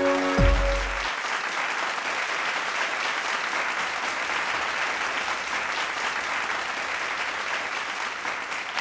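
A large audience applauding steadily. A piece of electronic music with a deep falling bass ends about a second in, just as the clapping takes over.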